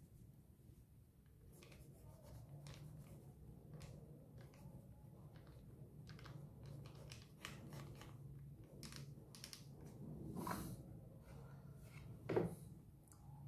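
Ballpoint pen scratching on sketchbook paper in many short, quick strokes. Two louder bumps come near the end, the second the sharpest.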